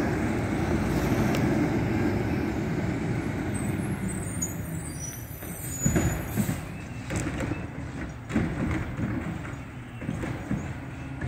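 Mack LEU garbage truck's diesel engine running as the truck drives off, fading steadily, with a few short knocks and clunks from about six seconds in.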